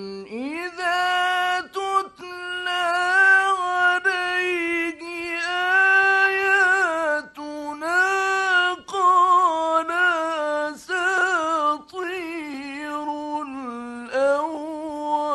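A male Egyptian Qur'an reciter chanting in the melodic mujawwad style. He holds long high notes with quick ornamental wavers, in phrases broken by brief pauses for breath.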